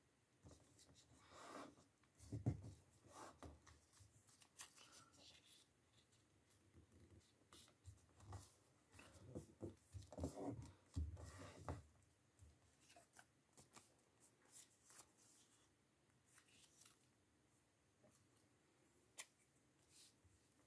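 A sheet of origami paper rustling and crinkling as it is folded and creased flat by hand. It comes in irregular handlings, loudest about two seconds in and again around ten to twelve seconds in, with a single sharp tick near the end.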